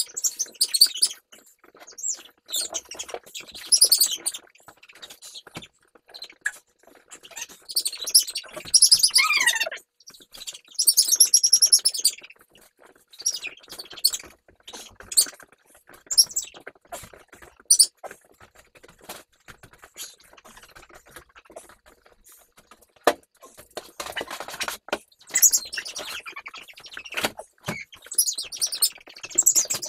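Young puppies whining and squealing in repeated high-pitched bouts, with one longer whine falling in pitch about nine seconds in. A few sharp knocks are heard in the second half.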